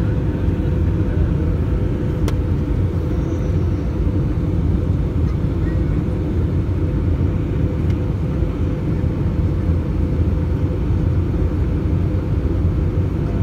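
Steady cabin noise inside an Airbus A319 airliner on approach: a low, even rumble of the jet engines and airflow with a thin steady hum above it.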